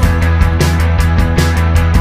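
Background rock music with guitar, a steady bass and drums.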